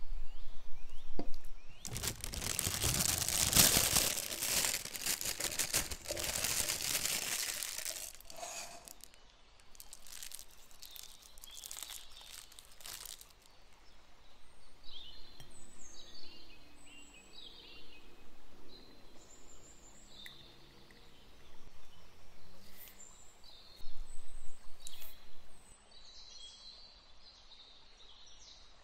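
Plastic piping bag and plastic cup rustling and crinkling loudly for several seconds near the start as sauce is piped into the cup, then a few lighter handling clicks. Later, faint short high chirps, like birds, sound in the background.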